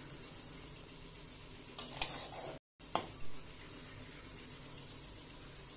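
Fenugreek greens sizzling faintly in oil in a kadai on a low flame while a spatula stirs them, with a few sharp scrapes of the spatula against the pan around two and three seconds in. The sound cuts out for a moment between the scrapes.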